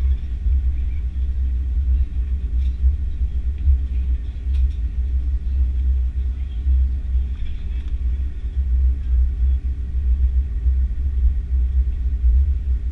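Steady low rumble inside the cabin of an Airbus A330-300 airliner as it taxis.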